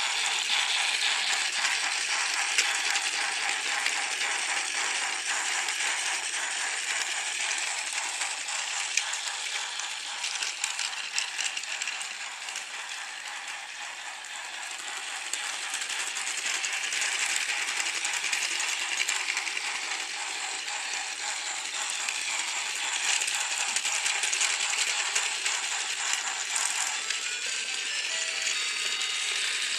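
Battery-powered TrackMaster Thomas the Tank Engine toy running on plastic track, its motor and gearbox giving a steady rattling whir. It grows fainter a little after ten seconds in as the engine moves away, then louder again as it comes back.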